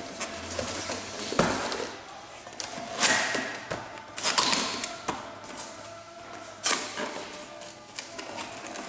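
Unpacking a cardboard box by hand: irregular rustling, scraping and knocks of cardboard and packing material, with several sharper handling sounds.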